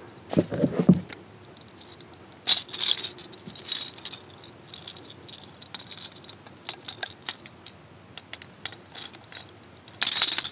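Metal clinking and rattling as fishing pliers work the treble hooks of a hard-bodied Berkley Bucktooth Choppo topwater lure free from a pike's jaw: scattered sharp clicks and small jangles, with a few dull knocks in the first second and a louder burst near the end.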